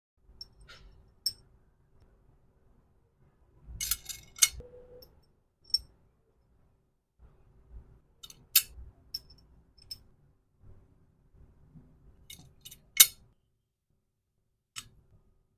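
Small hard accessories and packaging being handled by hand, giving irregular clicks, taps and light clinks. The loudest is a sharp click about three-quarters of the way through.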